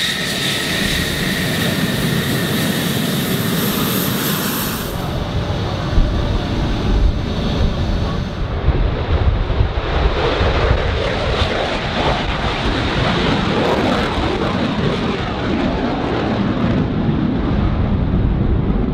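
Lockheed Martin F-35 Lightning II's single Pratt & Whitney F135 turbofan at takeoff power as the jet rolls and climbs away. A high whine over a deep rumble fades about five seconds in, leaving a steady, rough rushing roar.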